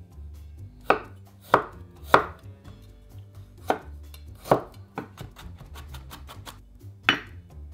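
Chef's knife chopping garlic on a wooden cutting board: six loud, sharp knocks of the blade on the board, irregularly spaced, with lighter quick taps between them.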